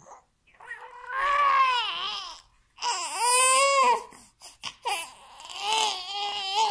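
Young baby crying in three long, high-pitched wails that rise and fall in pitch, with short breaths between them: the fussy crying of an overtired infant before a nap.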